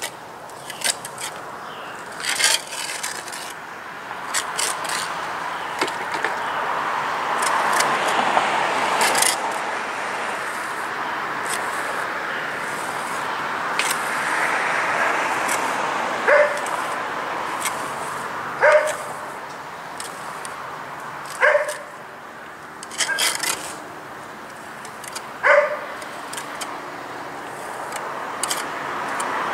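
A dog barking four times in the second half, two to three seconds apart, over the steady hiss of passing road traffic.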